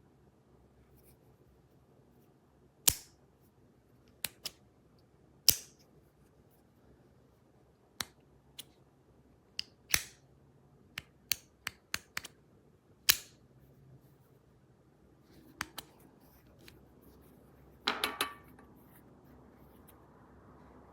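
A series of sharp, separate clicks and snaps of small hard objects being handled, at irregular intervals, with a quick cluster of clicks near the end.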